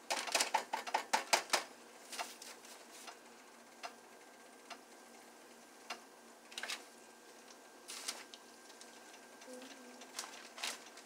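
Light clicks and taps from kitchen work: a quick run in the first second and a half, then single ticks every second or so.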